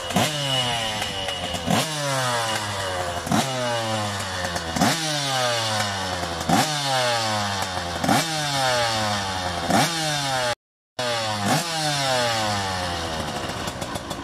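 Husqvarna TC85 two-stroke motocross engine being revved on the spot: about nine quick throttle blips, each a sharp rise in pitch that winds down in a falling whine before the next, roughly one every second and a half.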